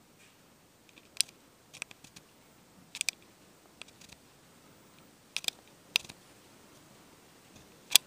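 Handling noise from a handheld camera: sharp, short clicks and ticks at irregular intervals, some in quick pairs, over a faint steady hiss.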